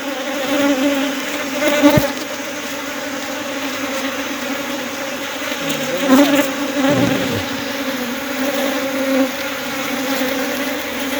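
Dense steady buzzing of a swarm of honeybees flying around a hive box, with a single bee sometimes passing close and its buzz rising and falling. The swarm is coming back to the box because a queen guard at the entrance keeps the queen inside.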